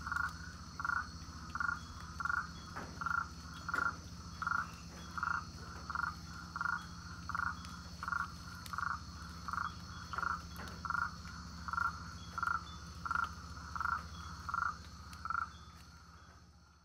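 A frog calling over and over in the Amazon forest, one short call about every three-quarters of a second, over a steady high insect hum. The sound fades out near the end.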